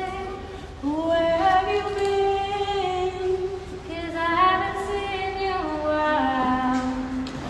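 Women's voices singing a slow melody without accompaniment, holding long notes that step up and down in pitch, with a short break shortly after the start.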